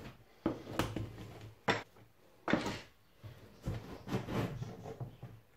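About six separate knocks and clicks, the loudest about halfway through, from handling a silicone caulking gun on a laminate kitchen worktop.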